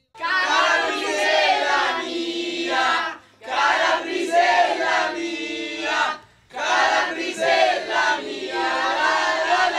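A group of young men and women shouting and chanting together in unison in three long bursts, with short breaks between.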